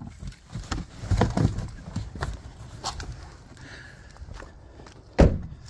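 Someone getting out of a car: scattered knocks and rustling, then footsteps on pavement. About five seconds in, the Civic Type R's door shuts with a single heavy thud.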